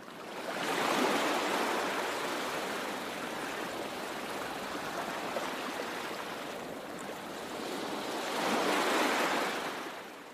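Ocean surf washing, a steady rush that swells about a second in and again near the end.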